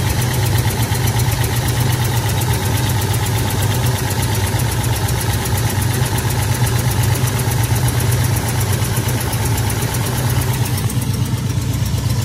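Pontiac 455 stroker V8 idling steadily with a valve cover off, while its rocker-arm nuts are adjusted with the engine running.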